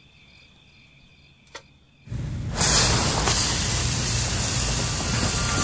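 Faint cricket chirping in a quiet night scene, then about two seconds in a loud, steady hiss starts suddenly, swells half a second later and keeps going.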